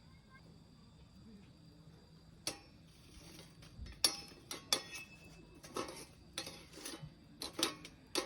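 A series of sharp clinks and knocks, about one a second, each with a brief ring, starting about two and a half seconds in.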